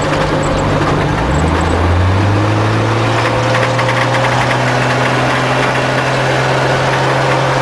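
Vehicle engine running under way, heard from inside the cab: its note drops about a second in, then climbs and holds steady, over road noise.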